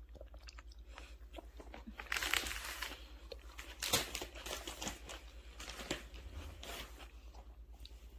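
Soft crinkling and rustling, loudest for about a second near two seconds in, with a few light clicks later on.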